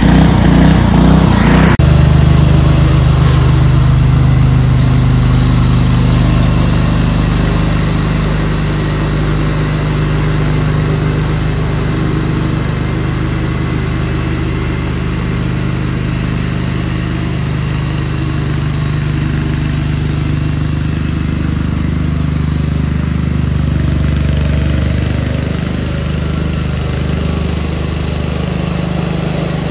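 Small gasoline engine running steadily at an even speed. A loud hiss over it cuts off suddenly about two seconds in.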